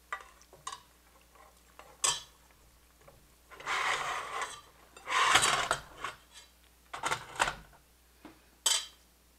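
A metal ladle and spatula knocking and scraping against a stainless steel cooking pot: a few sharp clinks, with two longer scraping sounds in the middle.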